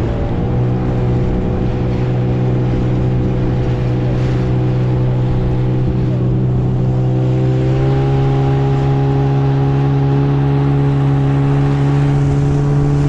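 Small outboard motor running steadily, driving an inflatable boat under way, with water rushing past the hull. The engine's note shifts slightly about eight seconds in.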